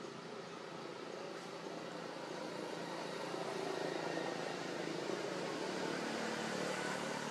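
A distant engine droning steadily, growing louder over the first few seconds, like a passing vehicle or aircraft.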